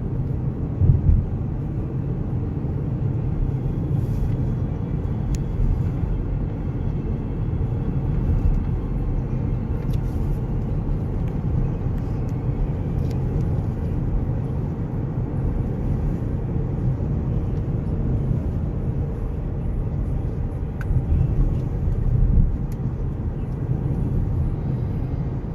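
Steady road and engine rumble of a moving car, heard from inside the cabin, briefly louder about a second in and again near the end.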